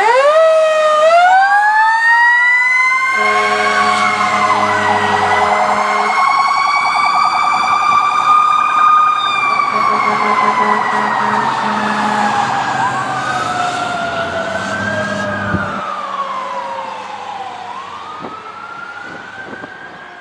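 Fire rescue truck's siren winding up, then slowly rising and falling in pitch, with another siren wail sweeping up near the end. Three long horn blasts sound over it. Everything fades as the truck drives away.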